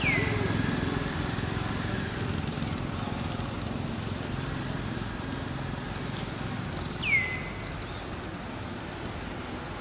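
Steady low rumble of distant traffic, with two short high calls that each sweep down in pitch, one at the start and a louder one about seven seconds in.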